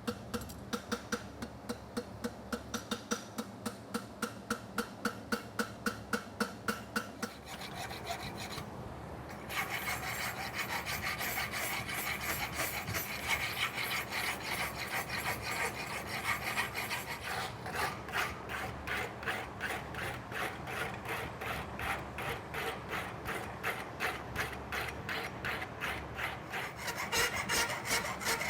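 File strokes across a hot steel concave horseshoe branch during a filing heat, in an even rhythm of about three strokes a second. After a short pause about eight seconds in, the filing resumes with brighter, denser strokes.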